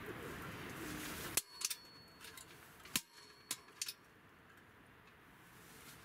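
Stainless-steel door of a G-Stove Heat View wood stove being shut and latched: a string of sharp metal clanks and clicks, two of them ringing briefly, after a rushing hiss that stops at the first clank.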